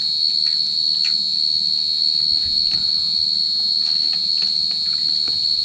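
Chorus of insects such as crickets, a steady high-pitched ringing trill, with a few faint clicks beneath it.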